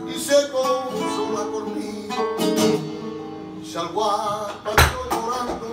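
Live flamenco music: two flamenco guitars picking and strumming, with a bowed violin and a singing voice over them. A loud sharp strike comes about five seconds in.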